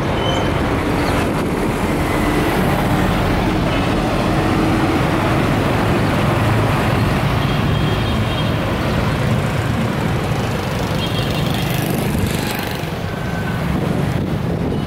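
A motor engine running steadily under a dense rush of road or wind noise.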